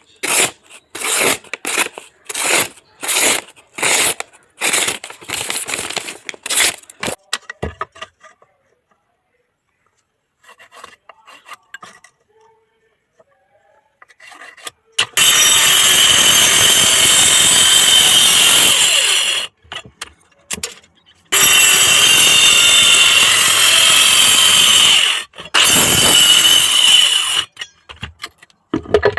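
Hand rasping strokes, a file or saw drawn back and forth about twice a second, for the first eight seconds. After a pause, a power tool such as a grinder runs loud in three long stretches, with a steady high whine in its noise.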